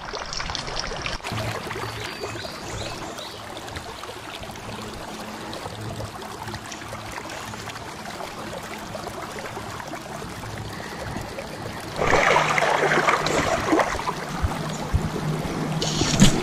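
Creek water running steadily, with a louder, rougher rush of water noise joining about twelve seconds in.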